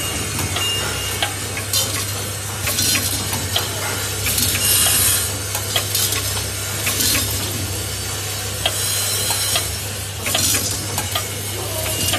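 Vibratory bowl feeders of a three-bowl automatic counting and packing machine running. A steady low hum sits under a constant hiss and rattle of small screws and plastic anchors jostling along the bowls' spiral tracks, with sharp clicks now and then.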